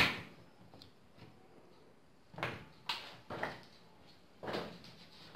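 Handling noise as SATA data and power cables are picked up and sorted for the drives: a sharp knock at the start, then a few short clatters and rustles about two and a half to three and a half seconds in and again near the end.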